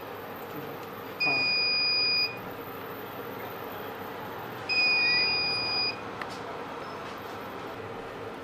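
Two long electronic beeps, each a steady high tone lasting about a second, the second coming about three and a half seconds after the first, over a steady hiss of rolls sizzling in butter in a pan. A short click follows the second beep.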